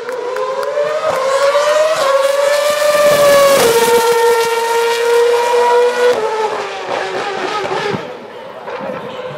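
High-revving single-seater racing car engine passing the grandstand: a high, pitched engine note climbing and dropping sharply at gear changes about two and four seconds in, loudest in the middle, then fading after about six seconds.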